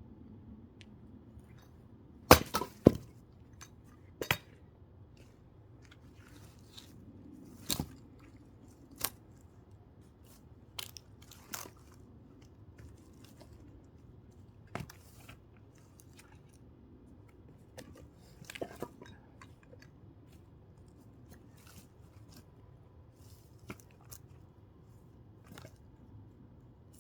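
Irregular sharp knocks and cracks of thick firewood being split. The loudest is a quick pair of blows a couple of seconds in, followed by scattered single knocks and lighter clatter of wood.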